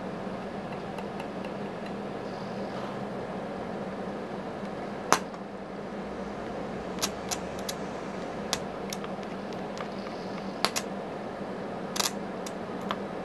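Inverter stick welder striking the arc in a scattered series of short, sharp cracks over the steady hum of the running machine. The arc never settles into continuous welding, in keeping with the machine's fault of welding briefly and then cutting out while still switched on.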